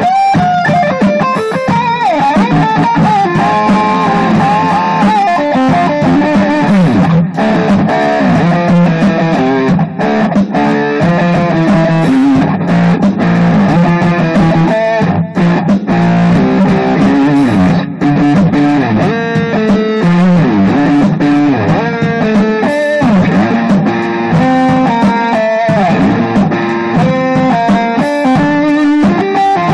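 Electric guitar played solo in a loose hard-rock jam: a continuous run of notes and riffs, some notes bent up and down in pitch.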